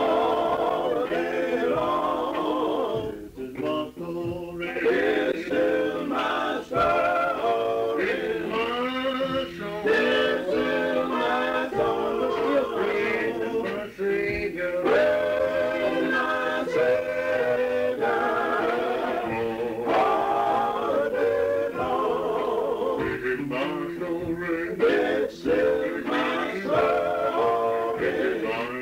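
Background music: a song with a male singing voice.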